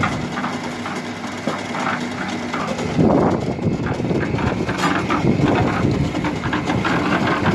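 Drum concrete mixer machine's engine running steadily, with rattling and clatter over it; it gets louder about three seconds in.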